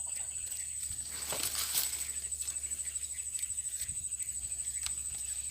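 Insects trilling steadily at a high pitch, with a few faint clicks.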